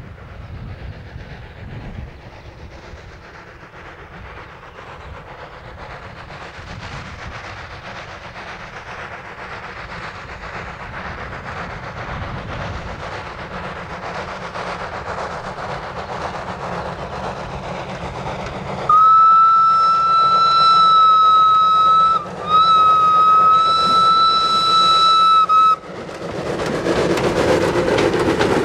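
Narrow-gauge steam locomotive 11sm working its train uphill, its running sound growing steadily louder as it approaches; then two long steam whistle blasts with a short break between them, the loudest sound here. After the whistle the locomotive and coaches pass close by, louder.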